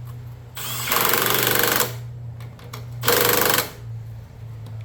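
Two loud bursts of a fast mechanical rattle, the first about a second long and the second about half a second, over a steady low hum.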